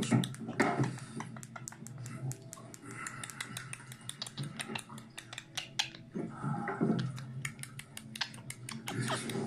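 A rapid, irregular series of sharp clicks and taps, several a second, with a short low voice-like sound about six seconds in.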